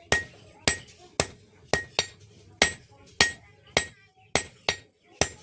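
Blacksmith's hand hammer striking steel on an anvil, forging a spatula, in an even rhythm of about two blows a second, each with a short metallic ring.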